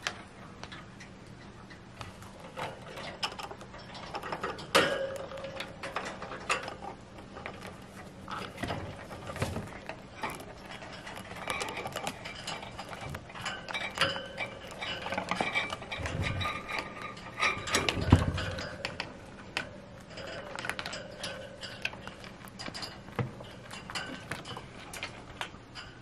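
Chinchillas gnawing apple wood chew sticks: rapid, irregular crunching clicks of teeth on wood, with a few louder knocks.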